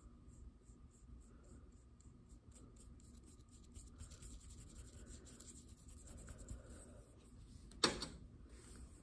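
Paintbrush rubbing and scratching acrylic paint onto a painting surface in short strokes, faint, with a single sharp knock near the end.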